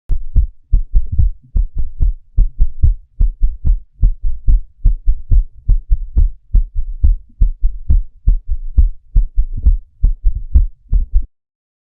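Heart sounds with an S4 gallop: each beat has a soft extra low sound just before S1, followed by S2, repeating at about 75 beats a minute. The S4 is the atria contracting into a stiff, non-compliant left ventricle. The recording cuts off suddenly near the end.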